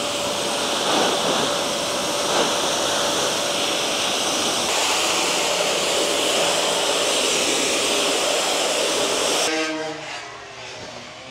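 A motorized machine running with a loud, steady rushing noise and a constant whine; it stops near the end.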